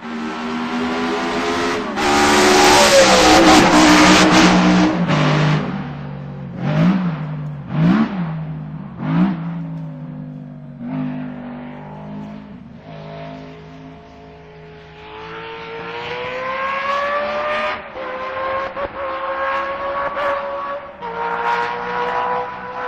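Racing car engine at high revs, loudest in the first few seconds, then three quick blips of the throttle about a second apart, then revs climbing slowly toward the end.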